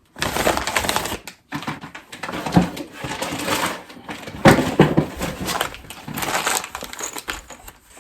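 Unpacking a kit by hand: plastic and cardboard packaging crinkling and rustling, with small hardware parts clicking and knocking on a table.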